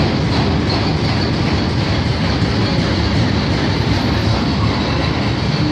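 Freight train of loaded steel-coil wagons rolling past close by, a loud, steady rumble of wheels on the rails.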